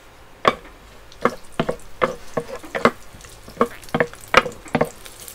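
Wooden spatula stirring chopped garlic frying in oil in a non-stick electric pot: repeated scrapes and taps, about two or three a second, over a light sizzle.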